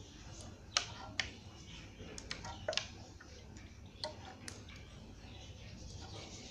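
A few irregular sharp clicks and light taps, clustered in the first half, from handling hard objects around a bench vise.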